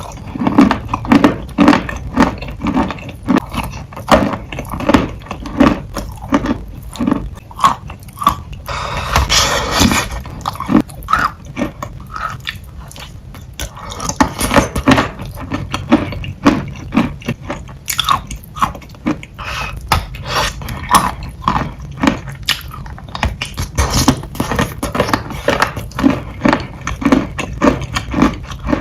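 Close-miked chewing of wet, soupy chalk: repeated wet crunches at about two a second, thinning out for a few seconds about halfway through.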